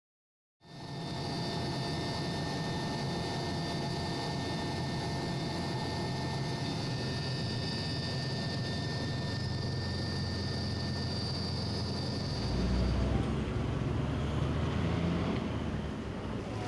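Steady drone of an aircraft in flight heard from inside the cabin, with high whining tones over a low rumble. About twelve seconds in it gives way to a lower, rougher rumble without the whine.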